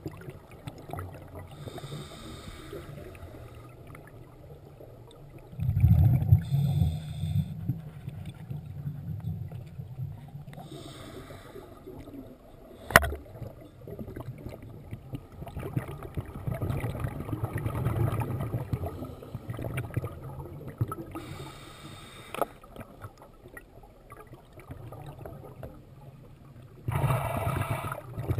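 Scuba diver breathing through a regulator, heard underwater: short hissing inhalations every few seconds and the low rumble of exhaled bubbles. A single sharp click about 13 seconds in.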